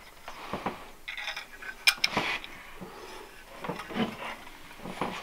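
Handling noise: soft rustling and a few small metallic clicks as a used metal electrical box is turned over in the hands, with one sharper click about two seconds in.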